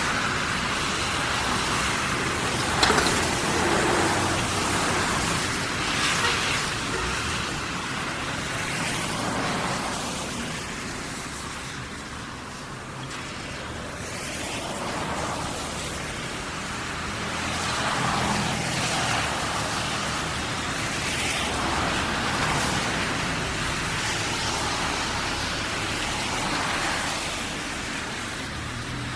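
Street traffic on wet roads after rain: cars passing one after another, their tyres hissing on the wet surface and swelling and fading every few seconds. There is a brief sharp click about three seconds in.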